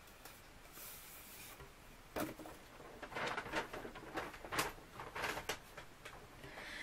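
Rolls of bookbinding cloth and paper being handled: a soft rustle, then a sharp knock about two seconds in and a run of light taps and rustles.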